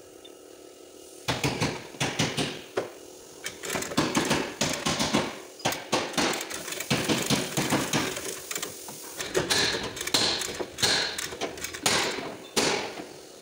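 Lever chain hoist being ratcheted to pull a car's crushed rear body panel out: a rapid, irregular series of metallic clicks and clanks as the lever is pumped, starting about a second in, with sharper ringing metal knocks near the end.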